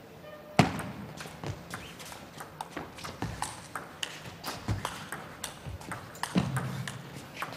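Table tennis rally: the ball clicking sharply back and forth off the rackets and the table in quick succession. The loudest click comes about half a second in, where the rally starts.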